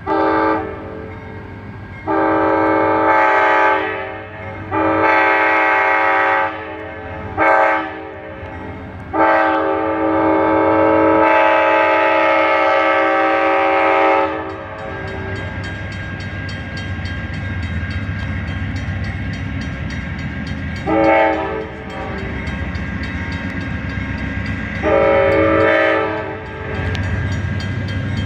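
Horn of an Amtrak GE Genesis diesel locomotive leaving a station, sounded long, long, short, long: the standard grade-crossing signal. Two more blasts follow near the end. Between blasts the diesel engine rumbles, louder as the train gets under way.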